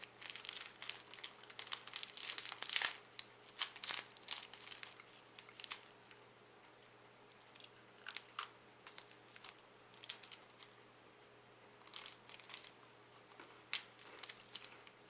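Plastic wrapper of a Pick Up! chocolate biscuit bar crinkling and tearing as it is opened, dense for about the first four seconds, then sparser crinkles with a few crunchy bites of the biscuit.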